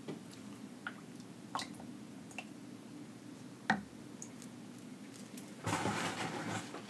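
Wooden spoon scooping seafood sauce from a glass bowl and dabbing it onto a king crab leg: faint wet squishes and small clicks, with one sharper click about halfway. Near the end comes about a second of crackling rustle.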